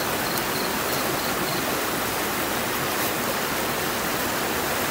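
Steady rush of flowing stream water, an even hiss with no distinct splashes.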